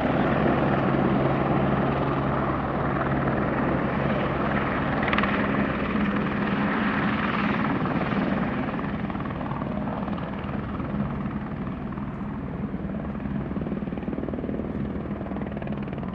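Airbus H125 single-engine turbine helicopter in a low hover, its three-blade main rotor and turbine running steadily. The sound fades gradually over the second half as the helicopter moves off.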